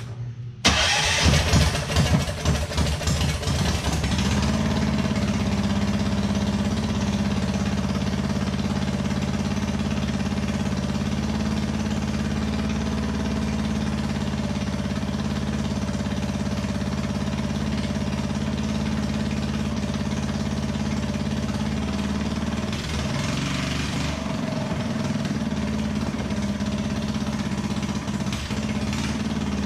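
Small single-cylinder gasoline engine on a bench catching and sputtering unevenly for a few seconds, then settling into a steady idle. Its speed wavers briefly about two-thirds of the way through.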